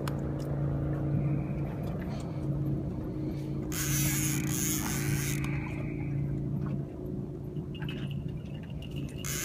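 Boat engine running steadily at idle, a constant low hum. A brief rushing hiss comes about four seconds in, and the hum weakens near the end.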